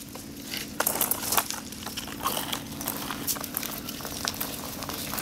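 Great Dane puppies scuffling around a skateboard on concrete: an irregular run of clicks, taps and scratches from claws and paws on the ground and the board.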